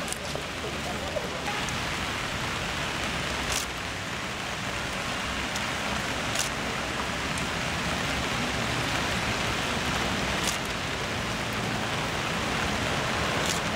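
Steady rain falling on wet paving and umbrellas, an even hiss with a few faint ticks scattered through it.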